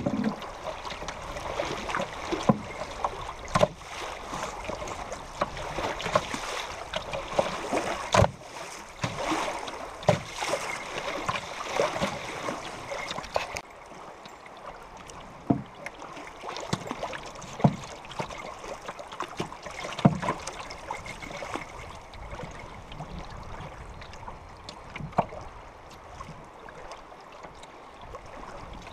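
River water rushing and slapping against a moving canoe's hull, with a sharp splash or knock every second or few seconds. The hiss of the water eases a little about halfway through.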